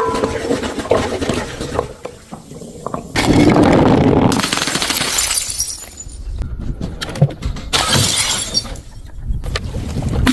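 Glass bottles smashing, with shards clinking and scattering after each crash. The loudest crash comes about three seconds in, and sharper knocks and smaller breaks follow.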